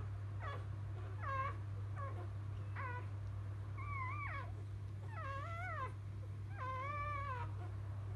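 Newborn Labrador Retriever puppy crying in a string of high, squeaky, kitten-like calls: short ones at first, then three longer wavering cries in the second half. A steady low hum runs underneath.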